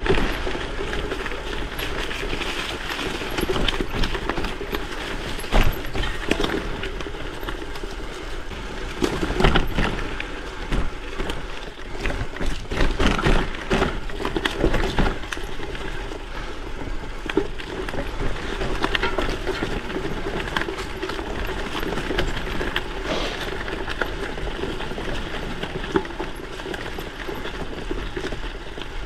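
Kona Rove LTD gravel bike on WTB Byway 650×47c tyres riding over a rough trail: continuous tyre and rolling noise with frequent irregular rattling knocks from the bike.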